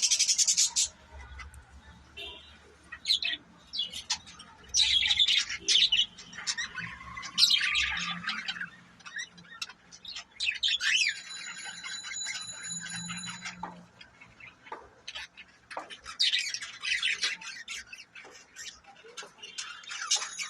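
A flock of pet budgerigars chattering: a continuous run of high chirps, squawks and warbles, with a few clear whistled notes near the middle.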